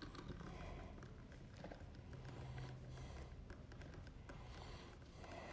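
Faint scratching and small clicks of a twist-on wire connector being screwed by hand onto bundled white neutral wires in an electrical box.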